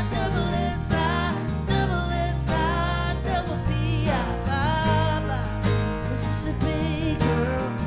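A country song played live by a small band: strummed acoustic guitar, electric bass and keyboard, with a male lead vocal singing over them.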